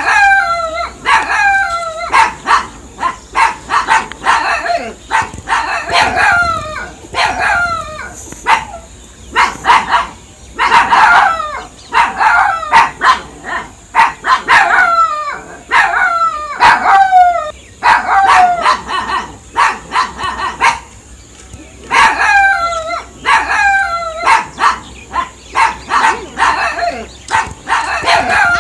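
Dogs barking in quick bursts of short barks, each bark falling in pitch, with brief pauses between bursts.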